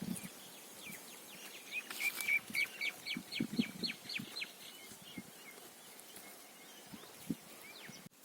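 A bird calling a rapid run of about a dozen short, sharp chirps, four or five a second, starting about two seconds in and stopping a couple of seconds later, over a steady outdoor hiss.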